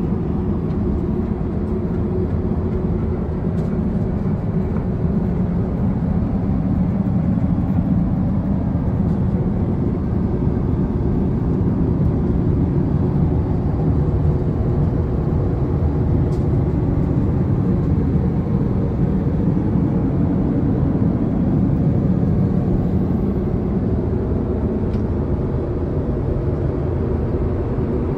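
Steady low rumble of a Boeing 777-300ER airliner, engines and airflow heard from the passenger cabin, unchanging throughout.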